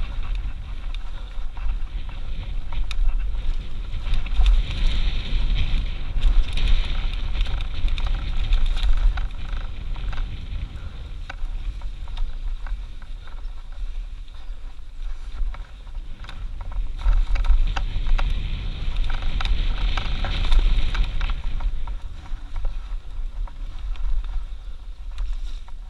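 Wind and tyre rush on a helmet-mounted camera's microphone while riding a mountain bike down a dirt forest singletrack, with a deep rumble and many small clicks and rattles from the bike over bumps. The rush swells louder twice.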